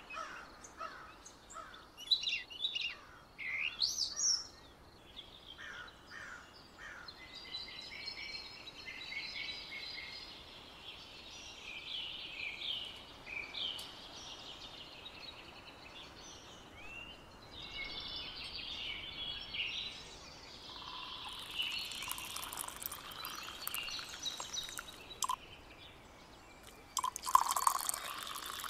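Small birds chirping and singing. Near the end, tea is poured from a kettle into a glass cup.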